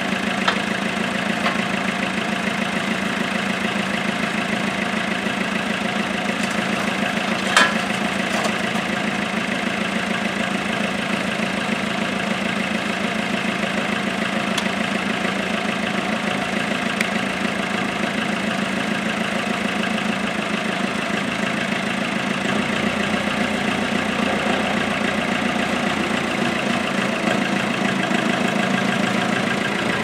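Loader tractor's engine idling steadily. A single sharp metallic clank comes about seven and a half seconds in. Over the last several seconds the engine note changes and grows slightly louder.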